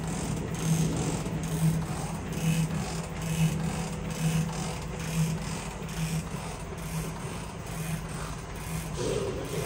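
Stanko 7A420 vertical slotting machine running its table power feed at the maximum feed rate: a steady mechanical hum that pulses about twice a second. A short rougher noise joins it about nine seconds in.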